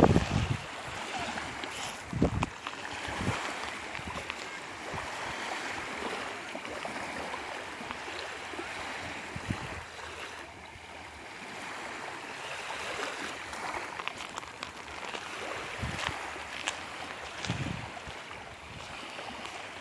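Sea waves washing steadily on the shore of the Sea of Azov, with gusts of wind buffeting the microphone now and then: just after the start, about two seconds in, and twice near the end.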